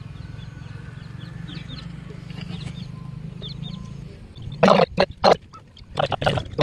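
A low, steady engine drone with faint bird chirps over it; about four and a half seconds in, a few short, loud bursts break in.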